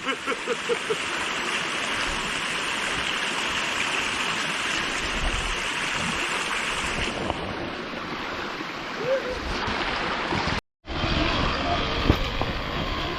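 Mountain stream water rushing steadily, with a brief dropout near the end followed by a lower rumble.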